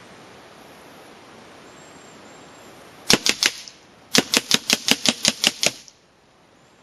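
FX Revolution .22 PCP semi-automatic air rifle firing rapidly: three quick shots about three seconds in, then a fast string of about ten more at roughly six or seven shots a second.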